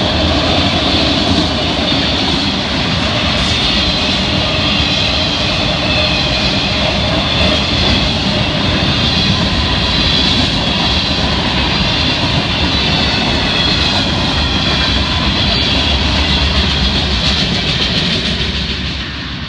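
Mixed freight cars (autoracks, tank cars and boxcars) of a freight train rolling past close by: a steady, loud rumble of wheels on rail. It begins to fade near the end as the last cars go by.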